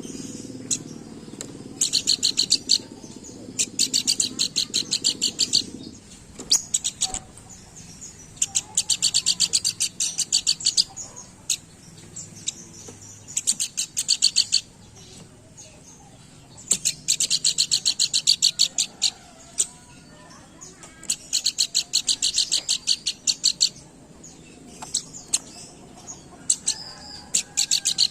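Pelanduk bukit (a babbler) singing in bursts of rapid, high-pitched repeated notes, each burst about a second long and coming every few seconds. A low steady hum underneath stops about six seconds in.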